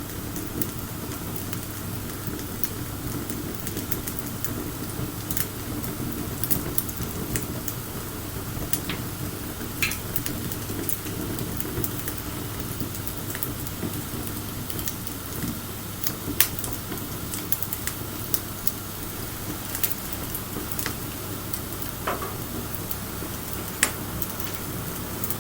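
Wood bonfire burning: a steady hiss and low rush, with irregular sharp crackles and pops as the wood burns. Two pops, about two-thirds of the way in and near the end, stand out louder.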